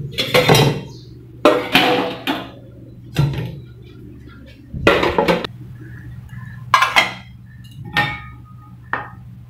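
Steel pots, bowls and glass tumblers clattering and clinking as washed dishes are put away onto a wire dish rack, in about seven separate bursts, a few ringing briefly. A steady low hum runs underneath.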